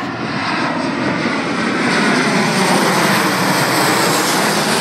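Ryanair Boeing 737 jet airliner passing on its landing, its jet engines making a loud rushing noise that swells to its loudest about halfway through and eases slightly near the end.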